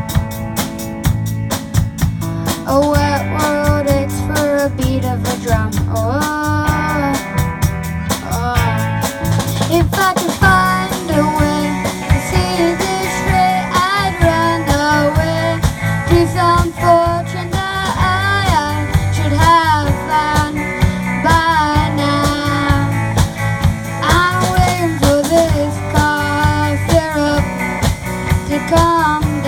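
A band playing a rock song: a singer carrying the melody over drum kit, guitar and bass, with busy drumming in the first ten seconds or so.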